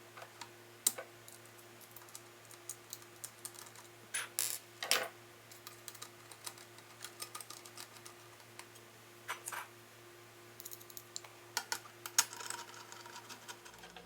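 Irregular light clicks and short scrapes of small metal grinder parts being handled and fitted together while reassembling a Mazzer Mini coffee grinder, with a faint steady hum underneath.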